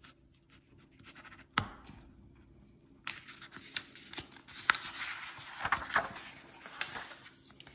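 Pen scratching briefly on paper, then from about three seconds in a loud rustling and crackling of paper sheets being lifted and turned over.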